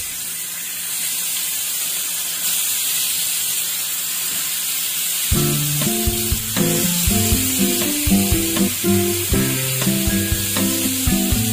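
Marinated fish pieces sizzling in hot oil on a flat iron griddle, a steady frying hiss. About halfway through, background music with plucked notes comes in over the sizzle.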